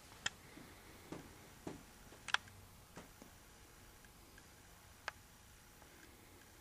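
Scattered faint clicks and taps, about six of them at irregular intervals, the loudest a little over two seconds in, over a quiet background.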